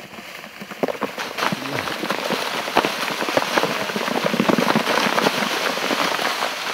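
Dry fallen leaves and loose debris crackling and rustling as they churn and tumble down a steep, leaf-covered rock slope. The crackle builds up over the first few seconds and eases a little near the end.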